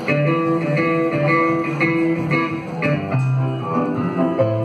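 Live rock band playing a rhythmic groove, with guitar and bass guitar to the fore; the bass line moves to new, lower notes about three seconds in.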